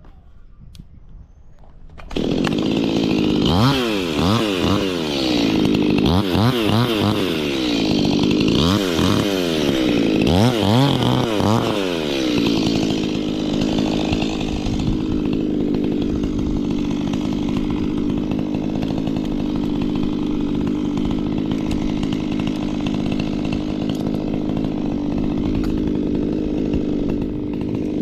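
Two-stroke Stihl chainsaw starting up about two seconds in and revving up and down several times, then running at a steady speed.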